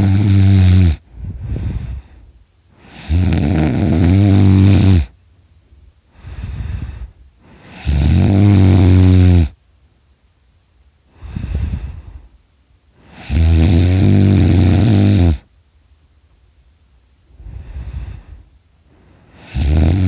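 A person snoring very loud in sleep: long, loud, low-pitched snores of about two seconds, roughly every five seconds, each followed by a shorter, quieter breath.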